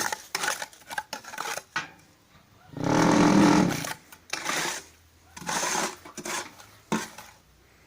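Crushed granite screenings being scraped and spread across a steel block-machine mould in short gritty strokes, with a louder rattling scrape lasting about a second roughly three seconds in.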